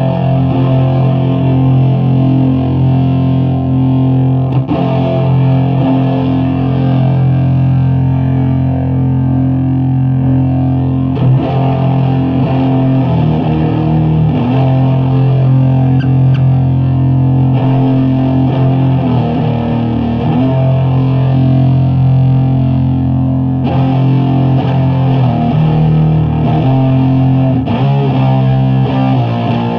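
Heavily fuzzed electric guitar, a '78 Gibson Les Paul Custom through fuzz pedals into a 50-watt Bridge City Sound Morrison amp and a 6x12 cabinet with Celestion V70 Gold speakers. It plays a slow riff of long, sustained low chords that change every second or two.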